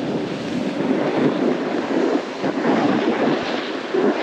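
Wind rushing and buffeting over the microphone of a snowboarder riding downhill at speed, mixed with the hiss of the board sliding through snow.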